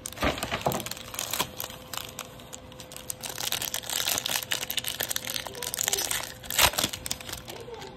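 Crinkling of a foil-wrapped trading card pack being handled and torn open by hand, with one loudest sharp rip late on.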